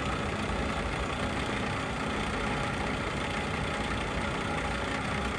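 LeBlond 3220-34 heavy-duty engine lathe running steadily, its carriage power-driven along the lead screw for threading with the half nut engaged.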